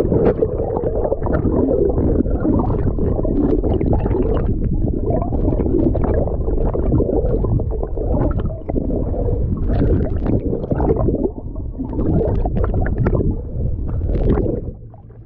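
Muffled gurgling and sloshing of seawater heard through a camera held underwater, with a steady low rumble and scattered crackles; it drops away sharply near the end.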